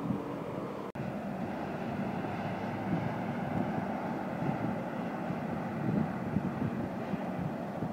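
Steady rumble of an Intercity train hauled by a red DB electric locomotive rolling past across the station tracks, with wind on the microphone. The sound drops out briefly about a second in.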